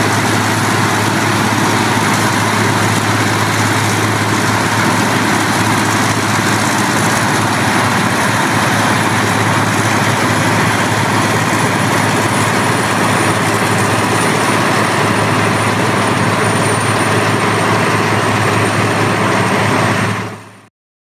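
Rotochopper wood grinder running steadily while it grinds wood into coloured mulch: the engine and grinding make a loud, even drone with a deep hum and a faint high whine, fading out near the end.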